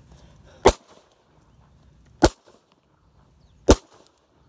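Three single shots from a blank-firing pistol, about a second and a half apart, each a short sharp crack.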